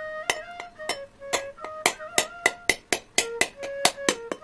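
A whole coconut struck over and over with a kitchen knife to crack the shell into two halves: sharp knocks about four a second, over soft flute music.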